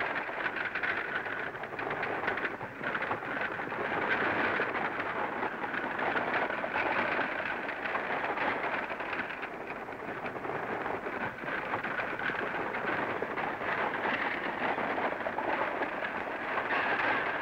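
Steady crackling hiss: the surface noise of a worn 1930s optical film soundtrack, with no dialogue or music over it.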